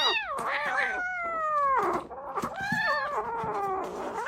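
Kitten meowing repeatedly: long, high meows, each falling in pitch.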